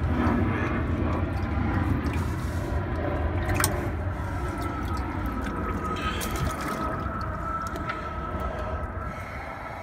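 Water churning and splashing in a boat's live-well tank as a hand moves through it among the fish, over a steady low hum.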